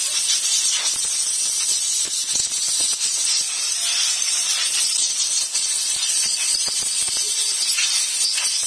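Compressed-air blow gun hissing steadily as it blows through the fuel pump filter of a Yamaha Nmax scooter to clear out clogging dirt.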